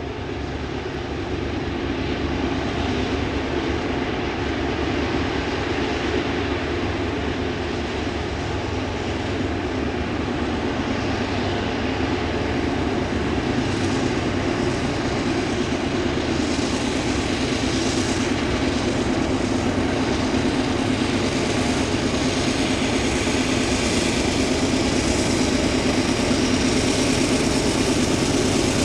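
Diesel locomotives hauling a loaded coal train upgrade, a rebuilt SD30C-ECO trailing the lead unit. Their steady engine drone grows louder as the train comes out of the tunnel and draws near, with a higher hiss building from about halfway.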